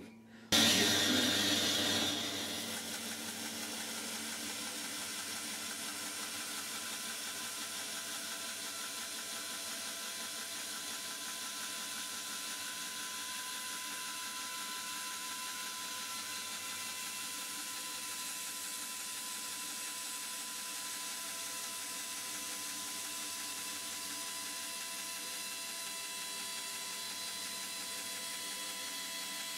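Lumberjack BS305 12-inch band saw running steadily at its fast blade speed, a constant motor hum with a few steady tones. It is loudest for the first two seconds, then settles to an even level.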